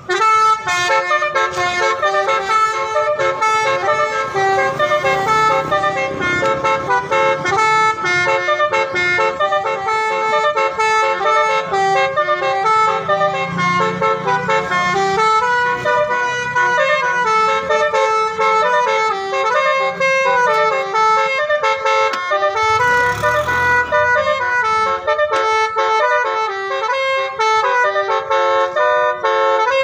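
Indonesian bus telolet horn, a multi-trumpet bus horn, playing a fast melody of quickly stepping notes without pause. A brief burst of noise breaks in about three-quarters of the way through.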